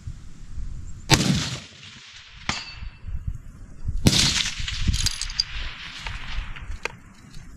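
Two rifle shots about three seconds apart, each with a short ringing tail, with sharper metallic clinks between them and after the second.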